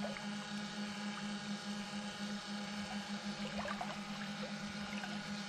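Steady electric hum with a fainter whine above it from a small boat's trolling motor running, with a few faint short chirps near the middle.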